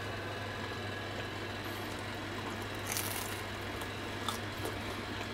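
Chewing a bite of homemade pizza with a crispy top crust: a few faint crunches, the clearest about three seconds in, over a steady low hum.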